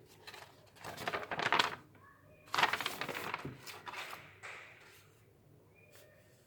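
Paper pages of a booklet being handled and turned: a few rustling sweeps with small clicks.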